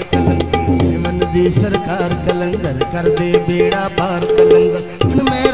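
Harmonium playing a melody over a fast, steady tabla rhythm: an instrumental passage of a Punjabi devotional folk song. The music dips briefly near the end.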